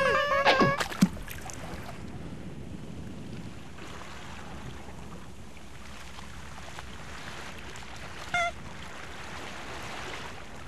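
Cartoon sound effects: a quick run of high, chirpy peeps that stops within the first second, a couple of falling glides and a sharp knock, then soft, steady ocean waves lapping. One short squeak cuts in about eight seconds in.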